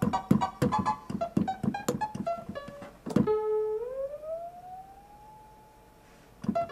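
Software-synthesized notes computed from a mathematical block graph of sine-times-exponent harmonic components, played from a synthesizer keyboard: a quick run of short notes with sharp attacks and rich harmonics, stepping downward. About three seconds in, one held note slides upward about an octave as it fades away, and a short note sounds near the end.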